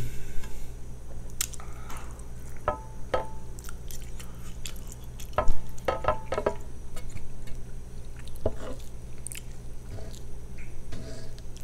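Someone eating with a knife and fork: wet chewing, with the cutlery clanking against the plate several times, the loudest clank about five and a half seconds in.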